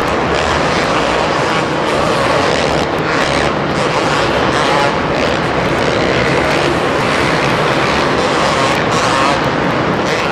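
Several two-stroke motocross bikes running on a supercross track, engines revving up and down continuously with short throttle chops.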